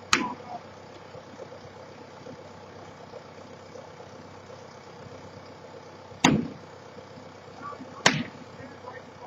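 Three sharp, loud bangs of demolition impacts: one at the start, one about six seconds in and another about two seconds later. Under them an engine runs steadily.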